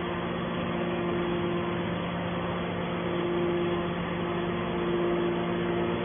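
Hydraulic scrap metal baler's power unit running: a steady mechanical hum with a higher tone that swells and fades a few times.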